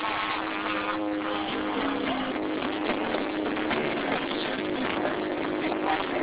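Live rock band music heard from the audience, with sustained guitar notes held about a second each over a steady wash of noise.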